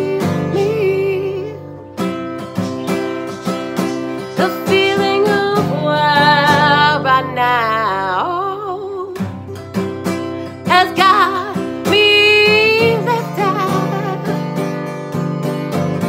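A woman singing in sustained phrases with a wide vibrato, to her own strummed acoustic guitar.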